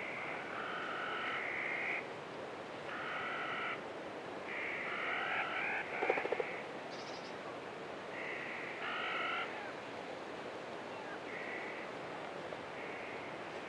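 Repeated trilling animal calls, each a buzzy trill up to about a second and a half long, coming every second or two and growing shorter and fainter toward the end, over a steady hiss. A quick cluster of clicks sounds about six seconds in.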